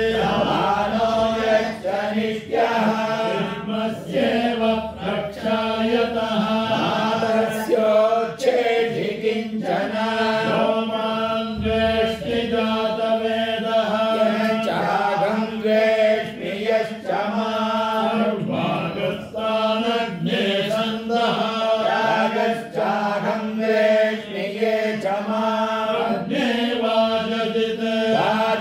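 Vedic chanting (Veda ghosha): Sanskrit verses recited without pause in a chant held close to one steady pitch.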